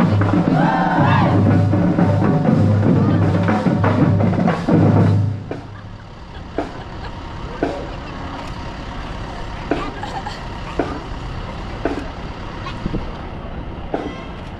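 Marching band playing, with bass drums on the beat, cutting off about five seconds in. After that, sharp single clicks about once a second over a low steady rumble.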